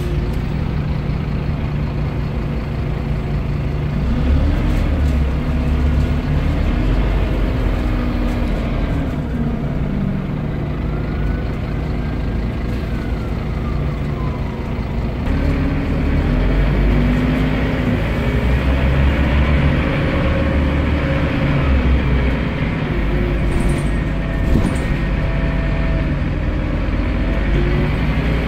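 Scania OmniCity single-deck bus (Scania CN230UB chassis) heard from inside the passenger saloon: the diesel engine pulls away and eases off several times in town traffic, its note rising and falling. A higher whine rises and falls about eleven seconds in.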